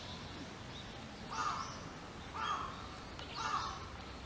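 Crow cawing three times, about a second apart, over steady outdoor background noise.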